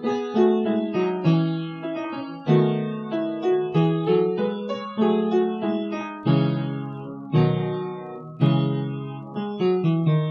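Instrumental background music: a piano or electric piano playing a melody over chords, each note struck and fading.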